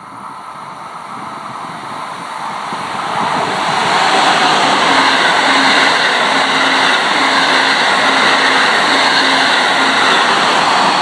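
Amtrak Acela Express electric high-speed trainset passing close by on the track. Its rushing wheel and air noise builds over about four seconds as it nears, then stays loud as the coaches and power car go by.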